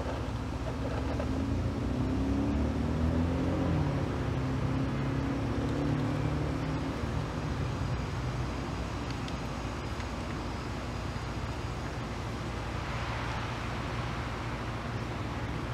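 A motor vehicle passing close by, its engine note swelling and then dropping in pitch as it goes past about four seconds in, over a steady low rumble of traffic.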